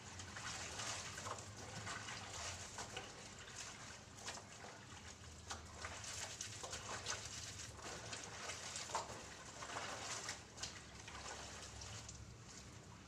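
Laundry being scrubbed by hand in a plastic basin of water: irregular sloshing, splashing and wet rubbing of fabric.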